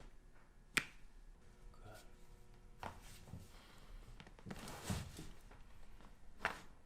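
A joint cracking during a chiropractic adjustment: one short, sharp pop about a second in, with a second click near the end and faint voice sounds between.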